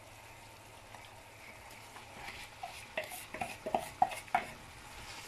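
Roasted semolina being pushed off a plastic plate with a wooden spatula into boiling water in a pan: a faint steady bubbling hiss, then from about two seconds in a quick run of sharp taps and scrapes as the spatula knocks against the plate and pan.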